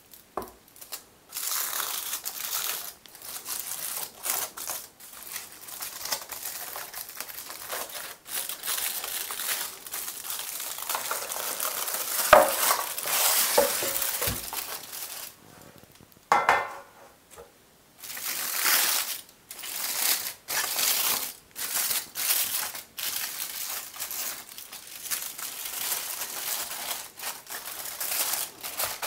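Aluminium foil crinkling and rustling in irregular bursts as a foil-wrapped brownie is lifted from its metal baking pan and the foil is folded back. Near the middle come a few short knocks with a brief ring as the metal pan is handled and set down.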